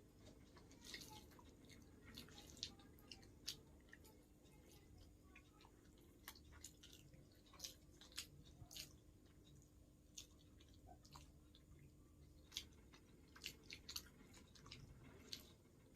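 Faint, close-up eating sounds: soft wet chewing with irregular small mouth clicks and smacks, of someone eating instant noodles and fried egg.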